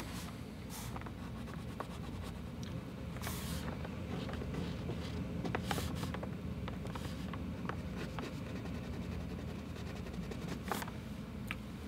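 China marker scratching and rubbing on drawing paper as it shades in dark areas, in a few short, separate strokes over a steady low background hum.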